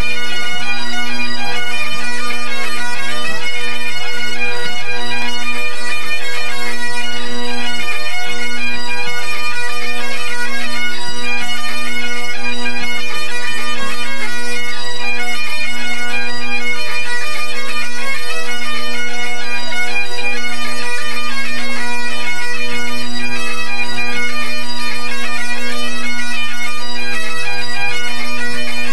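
Great Highland bagpipes of a full pipe band playing together in their tune-up: the drones hold one steady tone throughout under the chanters' melody.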